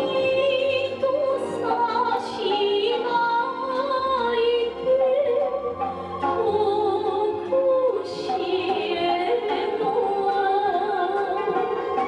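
Traditional Japanese song: a woman singing long, wavering notes over instrumental accompaniment.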